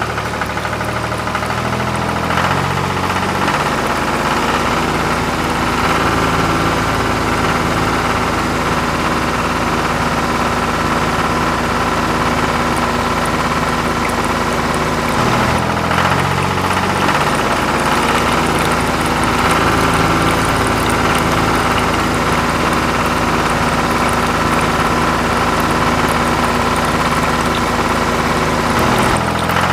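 Tractor diesel engine running steadily at idle, a looped recording that breaks and starts over about halfway through.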